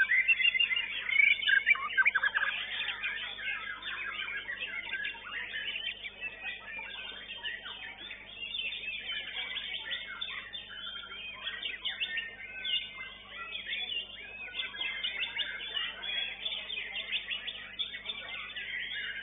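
White-rumped shama (murai batu) singing a rapid, unbroken stream of varied whistles and chirps, at its loudest in the first couple of seconds.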